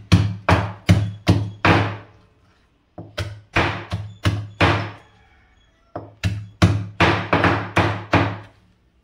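Pestle pounding in a traditional stone mortar (ural), crushing crab together with tomato, curry leaves and coriander. It comes in three runs of steady strokes, about two to three a second, each a sharp knock with a short ring, with brief pauses between runs.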